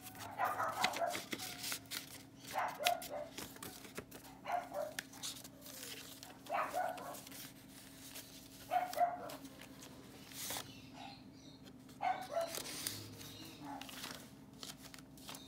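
A dog barking in about six short barks a couple of seconds apart, over a faint steady hum, with light paper rustling as pages and cards are handled.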